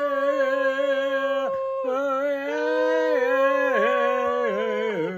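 Two voices toning together: long wordless sung tones, one higher and one lower, each held steady with wavering slides and dips in pitch, and a brief break about a second and a half in.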